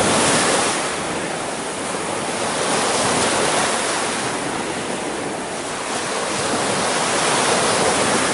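Waterfall's falling water rushing steadily, a loud, even hiss.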